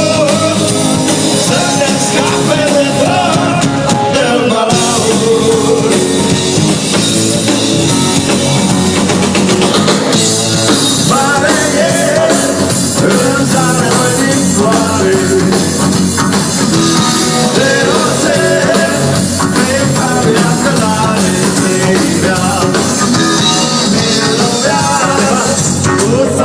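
Rock band playing live with drum kit and guitars, a voice singing over it through much of the stretch: a run-through during a sound check.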